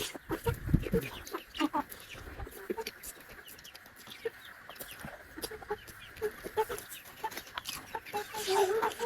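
Close-up eating sounds: chewing and lip smacking, with many short wet clicks, a few low thumps in the first second and a brief pitched sucking or humming sound near the end.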